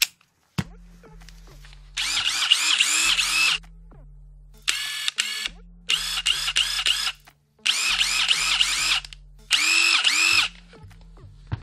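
Bosch GDX 18V-EC brushless impact driver/wrench running with no load in five short bursts of about a second each, the trigger pulled and released as each of its speed settings is tried. It runs normally.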